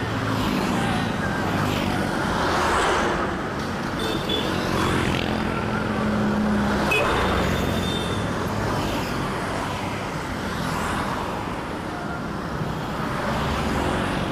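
Road traffic: vehicles passing one after another, their engine and tyre noise swelling and fading about every four seconds.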